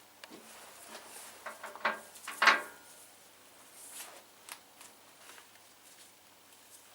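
Hands handling small parts and tools during wiring work: scattered light clicks and rubbing, with one sharper clack about two and a half seconds in.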